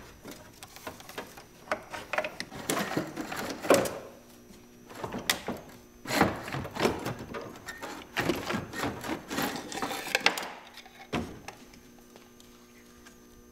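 A car radiator with plastic end tanks is worked loose and lifted out of a Volvo 850 engine bay: irregular clatter, knocks and scraping of plastic and metal parts in two spells, with a last sharp knock about eleven seconds in.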